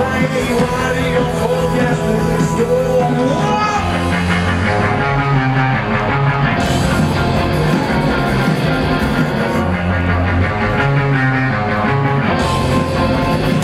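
Rock band playing live and loud: distorted electric guitars, bass and drums at full drive, with no break.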